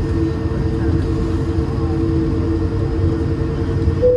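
Cabin noise inside an Airbus A220 rolling on the ground after landing: a steady low rumble with an even engine hum from its Pratt & Whitney PW1500G turbofans.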